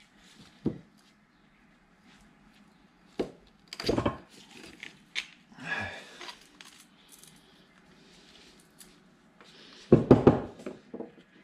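Metal parts being handled by hand: scattered knocks and clinks, with a quick run of louder knocks near the end.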